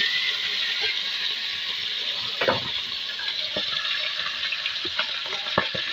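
Tilapia frying in hot oil in a wok: a steady loud sizzle that eases a little in the first second or so, with a few scattered pops.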